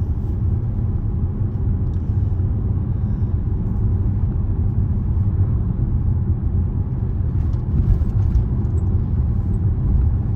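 Steady low road and engine rumble of a Range Rover on the move, heard from inside the cabin, with a few faint clicks about three quarters of the way through.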